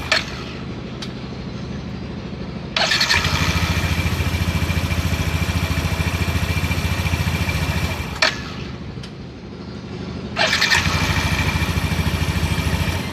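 Yamaha NMax scooter's single-cylinder engine running smoothly with the CVT's loose fan pulley refitted: the scraping of the fan against the engine block is gone. The engine gets louder twice for several seconds, and a sharp click sounds as each louder stretch ends.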